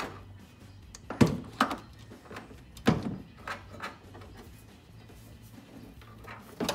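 Sharp knocks and taps of a Dodge Challenger's rear spoiler and its wiring against the trunk lid as the cable is pushed through its hole and the spoiler is lifted free. There are a few hard thunks, the loudest about three seconds in, and another just before the end, over a faint steady hum.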